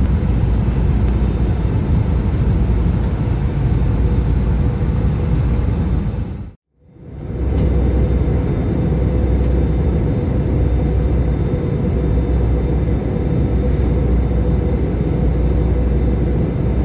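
Airbus A320 cabin noise: a steady low rumble of engines and airflow with a faint steady hum. It fades out and back in about six and a half seconds in.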